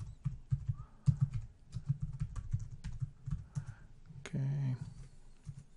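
Typing on a computer keyboard: a quick, irregular run of key clicks as a name is typed into a form field. A brief low hum of a person's voice comes about four seconds in.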